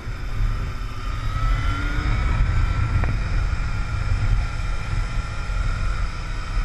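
Wind rushing over the microphone of a Yamaha motorcycle on the move, with its engine running underneath; the engine's whine rises a little about a second in. A single short click about three seconds in.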